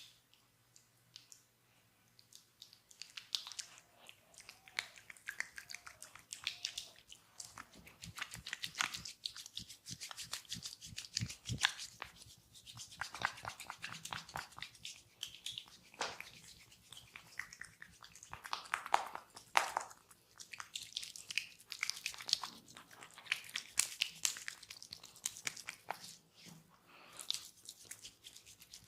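Fingers scratching and rubbing through hair and over the scalp, giving a dense, irregular crackling and rustling that starts about three seconds in.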